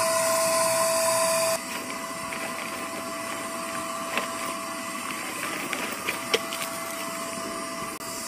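Electric inflator pump for pool floats running steadily, a whirring hiss with a steady hum. The hose is hooked to its deflate side, so the float is not filling. It drops in level about a second and a half in, with a few light clicks later on.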